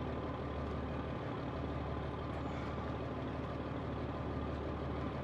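Pilot boat's engine running steadily: a low, even drone with a constant hum.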